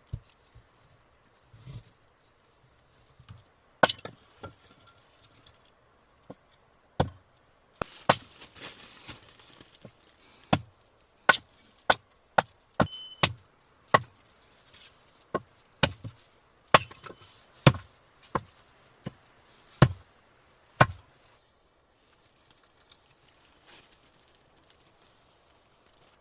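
Wood being chopped: a run of sharp, separate strikes at an uneven pace, sometimes about one a second, that stop a few seconds before the end.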